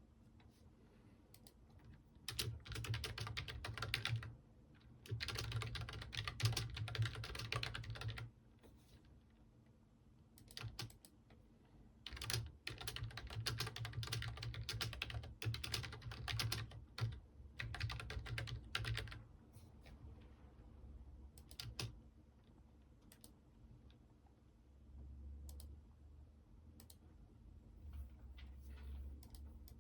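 Typing on a computer keyboard in bursts of rapid keystrokes a few seconds long, with pauses holding scattered single clicks.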